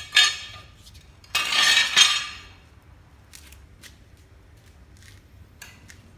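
Manual tile cutter's scoring wheel scraped across a ceramic tile: a sharp knock at the start, then a gritty, ringing scoring stroke lasting about a second from about a second and a half in, ending in a knock, followed by a few faint clicks.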